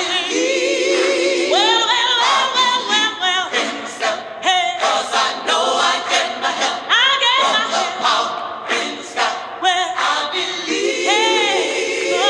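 Gospel vocal ensemble singing a cappella: held choral chords under a lead voice with wavering, sliding runs.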